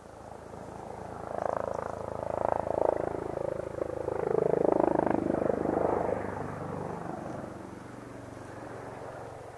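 Airbus H145M military helicopter flying past: steady rotor and engine noise that swells to its loudest in the middle and then fades.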